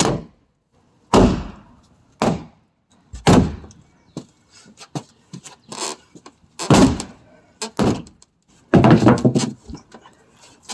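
A clubhouse being smashed apart by hand: a series of loud, irregular thuds and bangs as its walls are struck, with a longer crashing blow near the end.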